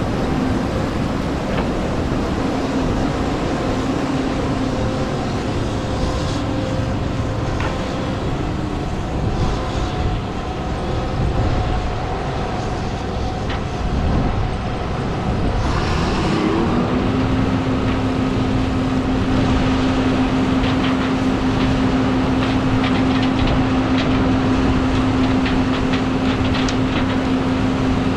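Combine harvester running: heavy diesel engine and threshing machinery droning steadily. About halfway through, a whine rises in pitch and then holds steady.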